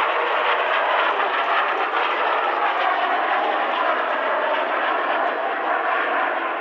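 Avro Vulcan XH558's four Olympus turbojet engines heard as steady, even jet noise as the delta-wing bomber flies past.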